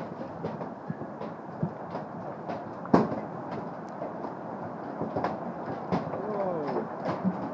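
Large hailstones pelting down in a dense, steady clatter, with sharp individual stone impacts standing out, the loudest about three seconds in.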